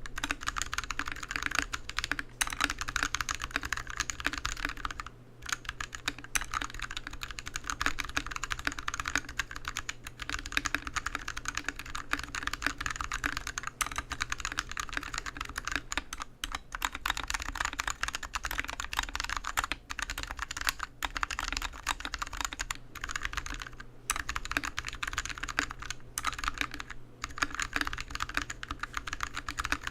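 Continuous typing on a mechanical keyboard with Outemu Sky switches, its plate-to-PCB gap filled with shelf-liner foam to damp the sound: a steady stream of key clicks and clacks, with brief pauses a few times.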